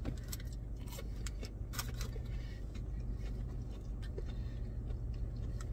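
A person chewing a crunchy fried onion ring, making scattered soft crunches and mouth clicks over the steady low hum of a car.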